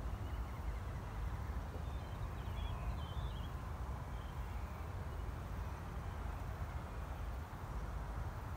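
Steady wind noise rumbling across the microphones in an open rapeseed field, with a few faint bird chirps about two to three and a half seconds in.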